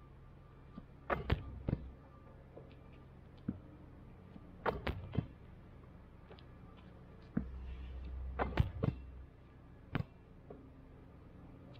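A basketball being shot and bouncing on a hard outdoor court, striking the hoop. The hits come in four clusters of sharp thuds, about one, five, eight and a half and ten seconds in.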